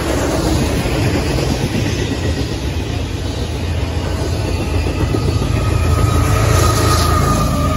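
Double-stack intermodal freight train rolling past: a steady rumble with the clatter of well-car wheels on the rails. Near the end it gets a little louder as the mid-train GE ES44AH distributed-power locomotive passes, and a thin whine sets in.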